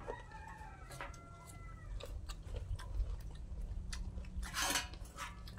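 People eating fish curry by hand: quiet chewing and mouth noises with small clicks, and one short, louder eating sound near the end. A rooster crows in the background about a second in.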